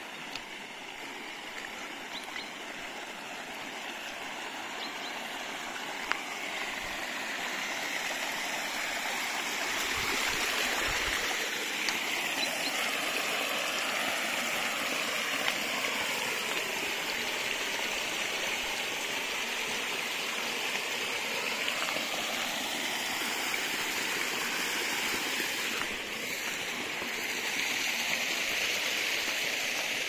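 A small mountain stream splashing and trickling over a rocky cascade. It grows louder over the first ten seconds or so, then holds steady.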